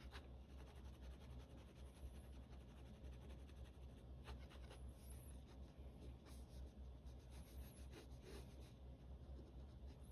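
Faint scratching of a pen hatching quick short strokes on sketchbook paper, over a low steady hum.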